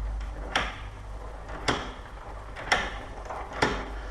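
Brava double-cylinder deadbolt worked with its key: four sharp clicks about a second apart as the bolt throws and goes into its deadlocking position, a sign the lock is installed properly.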